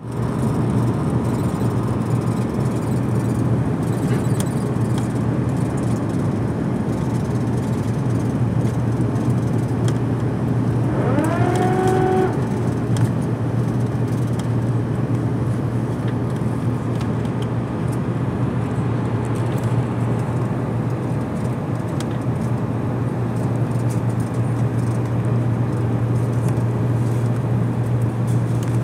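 Steady cabin noise inside an Airbus A330-300 airliner on approach: a low, even engine hum under airflow rush. About eleven seconds in, a short pitched tone rises and then holds for a second or so.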